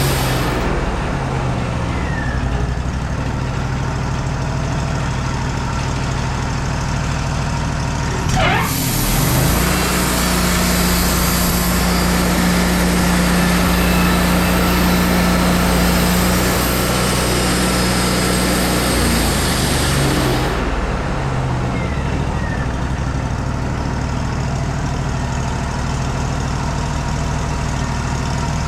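Wood-Mizer LT40 band sawmill running steadily. From about nine seconds to about twenty seconds the band blade is in the cut through a madrone log, adding a hiss over the engine, whose note strengthens under the load.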